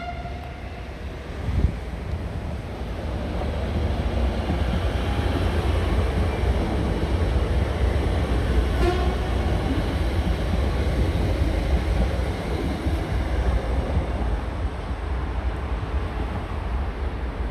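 Athens suburban train passing close by, a steady rumble of wheels on rails that builds from about four seconds in and stays loud. There is a short horn toot about nine seconds in, and a single thump a second and a half in.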